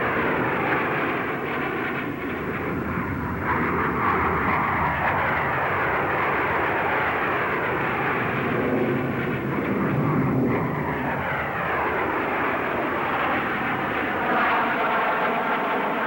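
Hawker Hunter jet fighters flying past in a formation display: a continuous jet roar with whines that slide down in pitch as aircraft pass, over and over.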